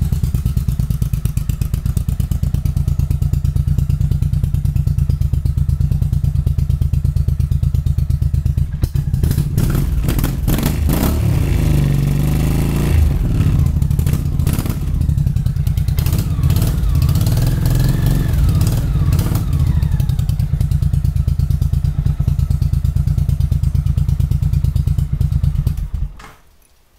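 Motorcycle engine running loudly on a cold start, revved up and down several times in the middle with some popping, which the owner puts down to revving it while still cold. It shuts off about a second before the end.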